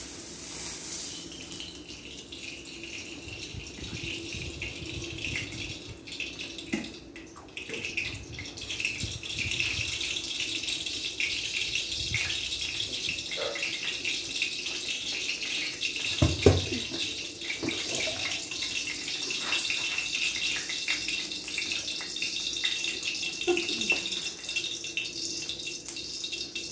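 Kitchen cooking sounds: a steady hiss from the stove and pan, with scattered clinks and knocks of utensils and one heavier thump about sixteen seconds in.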